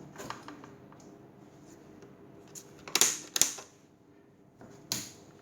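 Plastic clicks and knocks of a power cord's plug being pushed into a mini car fridge and its AC switch being pressed: a few light clicks, two sharp knocks about three seconds in, and one more near the end.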